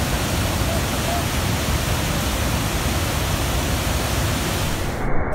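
Pykara Falls in full flood: a heavy torrent of water rushing and crashing in a loud, steady noise. The sound is cut off abruptly just before the end.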